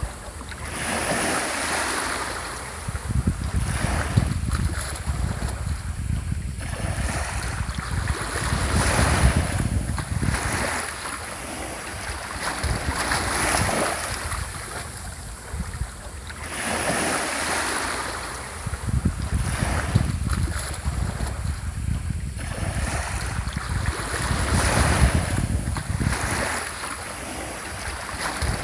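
Gentle sea waves breaking and washing up a shore, the surf swelling and falling back every few seconds, with wind rumbling on the microphone.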